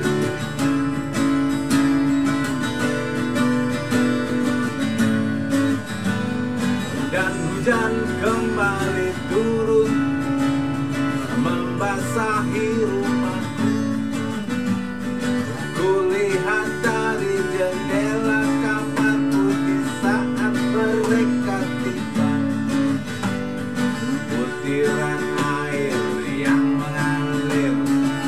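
Acoustic guitar strumming a relaxed chord pattern, the chords changing every second or two, with a voice softly carrying a melody over it in places.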